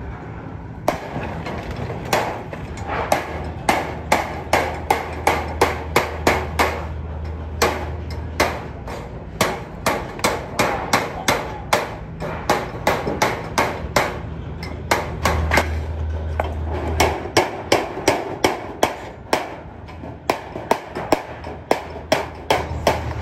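Hand hammer striking a stainless steel sheet, folding its edges over a steel frame to form a gas stove body. Sharp metallic blows come in quick runs of about three a second, with a couple of brief pauses.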